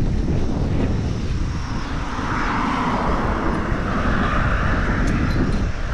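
Wind buffeting the microphone of a handlebar camera as a bicycle rolls along at speed. A rushing hiss swells in from about two seconds in and fades near the end.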